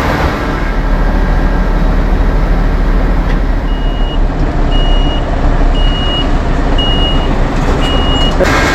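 A truck's engine running steadily while its reversing alarm beeps five times, about once a second, starting a few seconds in.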